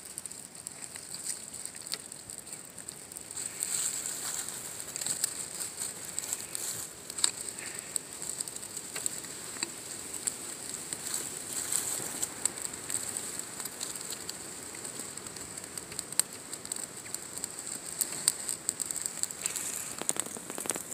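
Small newly caught fire of birch-bark tinder and dry twigs crackling, with many irregular sharp pops and snaps as thin sticks are laid on it.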